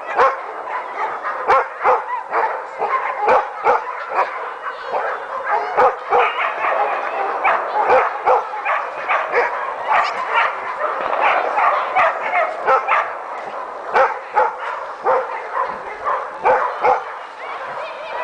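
Dogs barking over and over, with sharp barks coming irregularly throughout and higher yelps mixed in.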